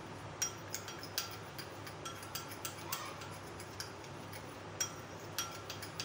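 Metal spoon stirring thick cream in a glass bowl: irregular light clinks and taps of the spoon against the glass, about ten in all, some ringing briefly.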